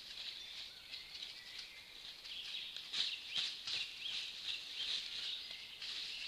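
Many songbirds singing at once, a dense overlapping chorus of chirps and trills, with a few short soft clicks or crackles about halfway through.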